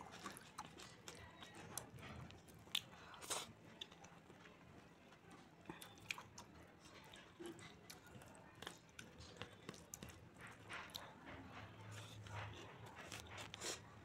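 Faint eating sounds: fingers mixing rice into palak paneer by hand, and chewing, with scattered sharp clicks throughout.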